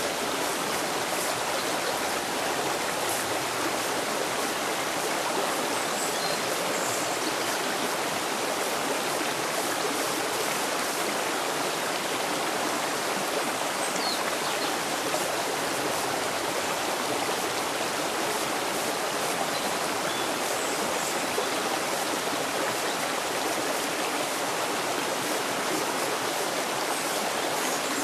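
Shallow stream running over rocks and small cascades, a steady rushing and babbling of water.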